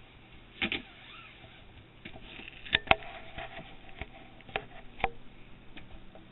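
Scattered light clicks and knocks, the loudest a quick double knock about three seconds in.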